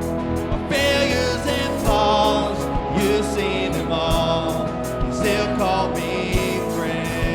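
Live worship band playing a contemporary Christian song, with voices singing over sustained keyboard and guitar chords and a steady drum beat.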